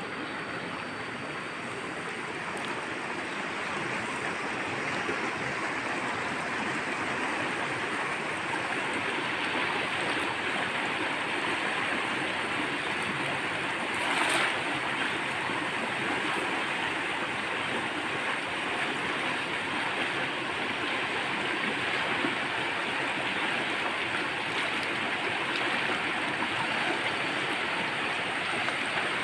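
Fast-flowing river rushing steadily, with a short splash about halfway through as a cast net lands in the water.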